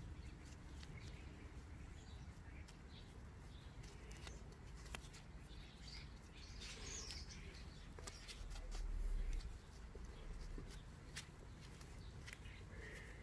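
Faint scattered clicks of a bicycle chain and its quick link being handled and fitted, with a low rumble lasting about a second near nine seconds in.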